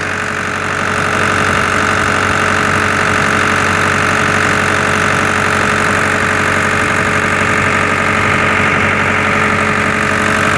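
Concrete pump's engine running steadily, a little louder after the first second.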